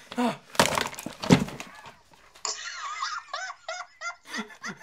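A man's excited laughter: a few loud breathy bursts in the first second and a half, then a run of short, quick giggles.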